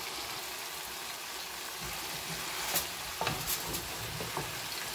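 Cauliflower florets sizzling in a pan of hot tomato sauce while being stirred with a wooden spoon, with a steady frying hiss. A few short knocks of the spoon against the pan come about three to four seconds in.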